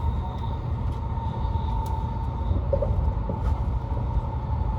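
Cabin running noise of a 700 Series Shinkansen heard from inside a passenger car: a steady low rumble with a faint, even whine above it.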